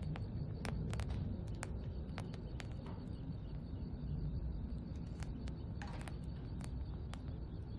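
Outdoor ambience: a low steady rumble with scattered sharp ticks, about two or three a second, and a couple of short faint chirps.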